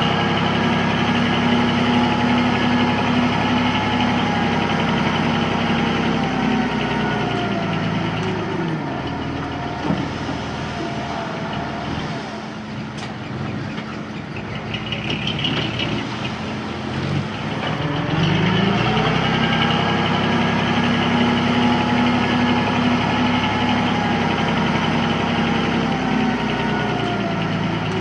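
Small bulldozer's diesel engine working, held at high revs, dropping back to low revs with a rattling clatter about eight seconds in, then revving up again around eighteen seconds and falling off near the end: the rev-up and ease-off of pushing soil.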